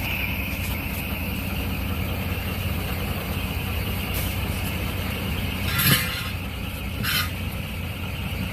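Truck diesel engine idling steadily, with two short hissing bursts about six and seven seconds in.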